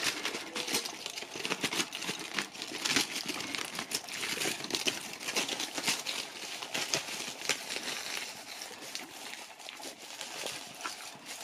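Foil Easter-egg wrapper crinkling and crackling irregularly as it is held and pushed about while a husky noses and licks at the carob egg pieces inside it.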